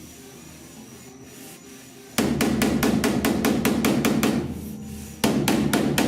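A grinder working down the welds on a sheet-steel roof patch panel, in two passes. Each pass starts suddenly with a loud, rasping grind when the disc bites the metal. The first tails off after about two seconds, and the second starts a little before the end.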